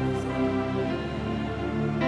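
Slow, soft worship band accompaniment between sung lines: sustained keyboard chords holding through the pause, with no singing.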